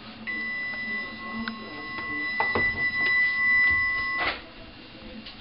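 Magic Chef oven's electronic timer sounding one steady high beep for about four seconds, the signal that the baking time is up. A few short knocks about halfway through, as the oven door is opened.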